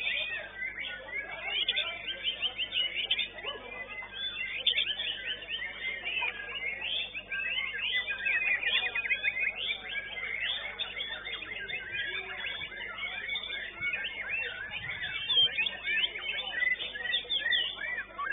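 White-rumped shamas (murai batu) singing at once in fast, overlapping runs of high whistles, chirps and trills, as at a bird-singing contest.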